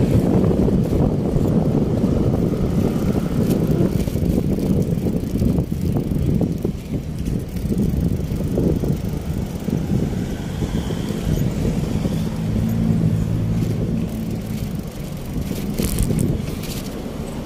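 Wind rumbling on the microphone, with tyre and road noise, while riding a bicycle along a street. A low steady hum joins for a couple of seconds past the middle.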